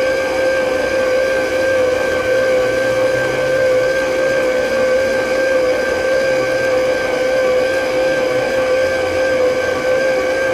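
Electric kitchen mixer running steadily with a loud, even whine.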